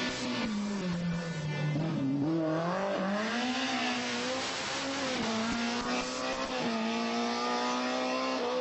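Rally car engine running hard, its pitch dipping and then climbing again as the throttle comes back on, with a rushing hiss in the middle.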